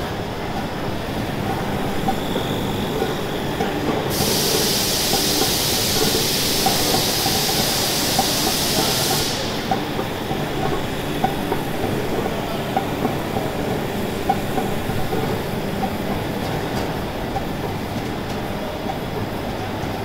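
Wide-width flexo printing machine running: a steady mechanical clatter with many small rapid clicks. A loud hiss starts suddenly about four seconds in and cuts off about five seconds later.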